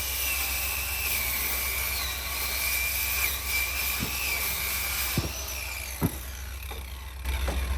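A power tool running steadily with a high, slightly wavering whine, with a few light knocks in the second half.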